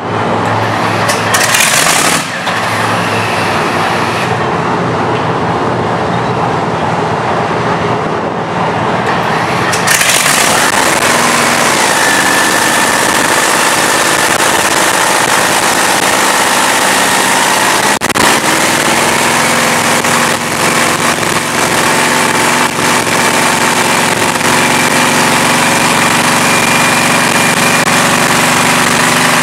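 Top Fuel dragster's supercharged nitromethane V8 running in a pit warm-up, loud and rough. The sound fills out about ten seconds in and then holds a steady note.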